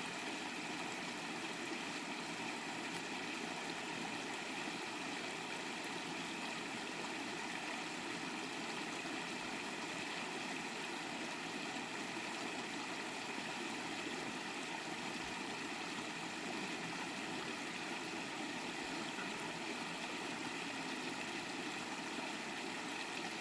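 Steady rush of flowing stream water, even throughout.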